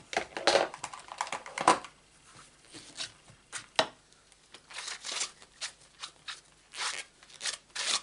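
Rubber stamp on a clear acrylic block being rubbed clean after inking: quick rubbing strokes, about three a second, starting about halfway through, after a few rustles of card and stamp being handled at the start.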